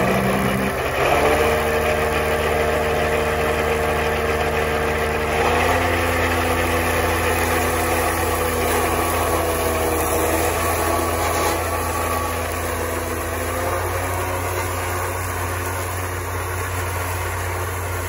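Tractor engine running steadily under load, powering a Krone disc mower cutting tall grass. The engine note shifts about a second in and again about five seconds in, and the sound fades slightly toward the end as the tractor pulls away.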